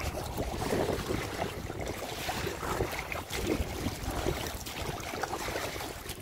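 Wind buffeting the microphone with choppy water lapping against a small boat.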